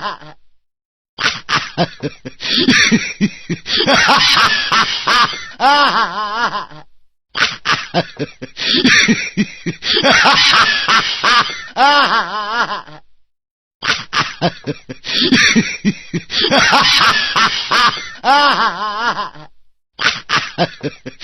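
Laughing 'hihiii hahaaaa' ringtone playing on a loop: a giggling, cackling laugh of about six seconds, repeated three times with short silent gaps between, and starting a fourth time near the end.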